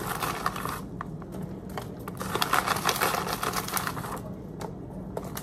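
Plastic bag of raw shrimp crinkling and rustling as it is pulled open and handled, in two spells of rapid crackling: a short one at the start and a longer one from about two seconds in.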